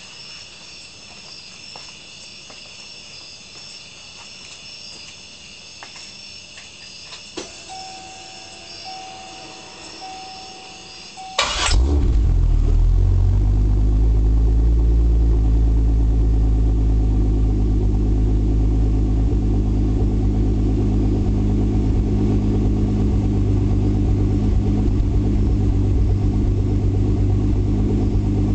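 Turbocharged GM 3800 V6 exhaust: after a quieter stretch with a short run of beeps, the engine starts suddenly about a third of the way in. It then settles into a loud, steady idle with a deep burble.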